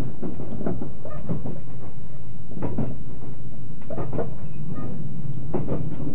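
A JR 381 series tilting express train running, heard inside the passenger car: a steady low rumble with irregular knocks and creaks from the car as it rides the curving track.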